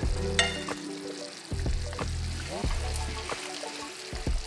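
Lamb chops sizzling in a pan of thickened gravy, under background music with a repeating bass line.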